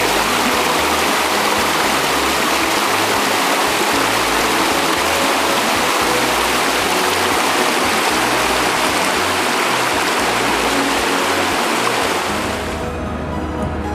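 Fast-flowing river rushing over rapids, a loud steady wash of water that fades away about twelve seconds in.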